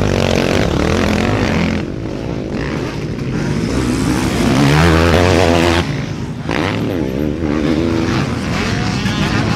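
Motocross dirt bike engines revving, their pitch rising and falling. The sound changes abruptly about two seconds in and again about six seconds in.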